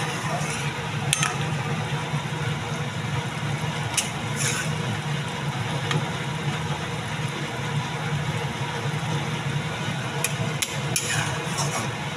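A metal spatula stirring and scraping through a thick, wet curry in an iron kadai, with a few sharp clicks of the spatula against the pan, over a steady low hum.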